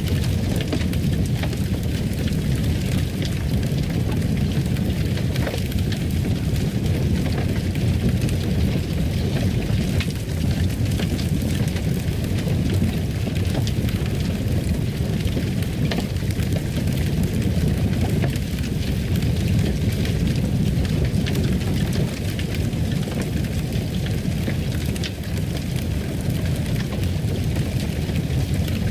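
Fireplace fire burning: a steady low rumble with scattered small crackles and pops.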